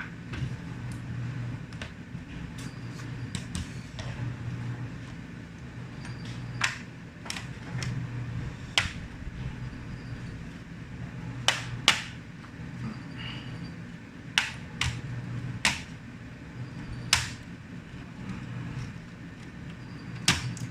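Sharp plastic clicks and snaps at uneven intervals, about a dozen of them, as the clips of a Dell Inspiron 15 3576 laptop's plastic case are pushed and pried loose. A steady low hum runs underneath.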